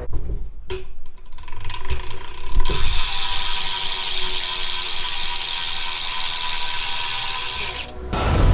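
BMX rear hub freewheeling, its pawls clicking as the wheel spins. About two and a half seconds in the clicking becomes a dense, steady ratcheting buzz, which ends suddenly shortly before the end.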